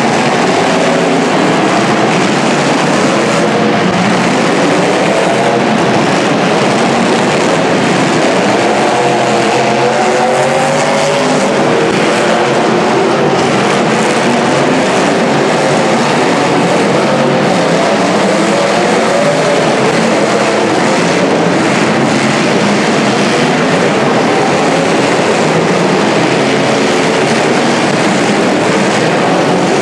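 Several demolition derby cars' engines running and revving at once, their pitches wavering up and down over one another.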